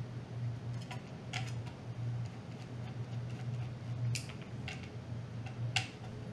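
Sharp small metal clicks and taps of a screwdriver working T6 Torx screws out of a metal camera body, a handful of separate clicks with the loudest about four and six seconds in, over a steady low hum.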